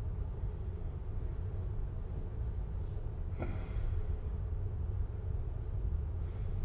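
A steady low rumble, with a person's short breathy sound falling in pitch about three and a half seconds in, and another breath-like rush near the end.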